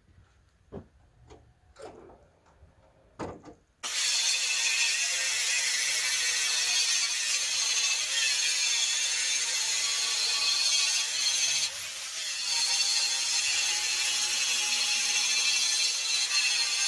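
A few light knocks and clicks, then about four seconds in an angle grinder starts up and runs steadily, grinding rust and scale off a crusty steel beam to get it down to clean metal. Its noise dips briefly once in the middle.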